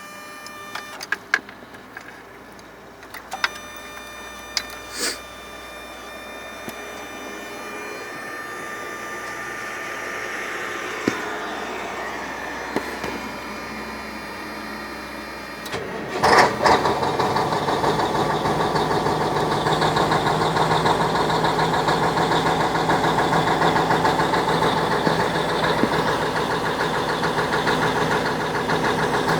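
YaMZ-6581.10 V8 diesel engine starting: a few clicks and a slowly rising hum, then it fires with a loud surge about 16 seconds in and settles into a steady, rhythmic idle. The owner hears an unexplained knock in this engine.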